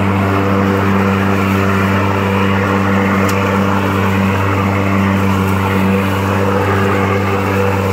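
Falcon electric rotary lawn mower running as it is pushed over the lawn cutting grass: its electric motor and spinning blade give a steady, even hum.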